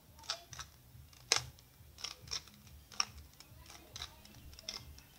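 Plastic clicks and clacks of a bandaged 3x3 Rubik's cube as its layers are turned by hand in quick moves. There are about a dozen irregular clicks, the loudest about a second and a half in.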